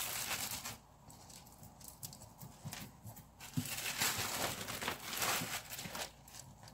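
A clear plastic sheet crinkling as it is peeled back from a rolled-out disc of bulgur kubba dough, then a hand patting and pressing the damp dough flat, with intermittent taps and rustles of the plastic.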